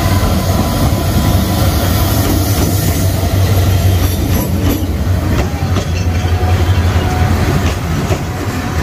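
Diesel locomotive passing close by as the train pulls into the station, its engine giving a deep, steady rumble, then passenger coaches rolling past with wheel clatter.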